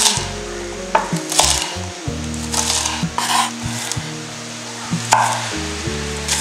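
Chef's knife chopping spring onions on a wooden cutting board: about half a dozen separate, unevenly spaced knocks of the blade through the onion onto the wood, over soft background music with long held notes.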